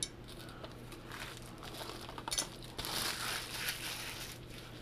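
Cardboard box and its packaging being handled: soft rustling and crinkling in short patches, with a light tap at the very start.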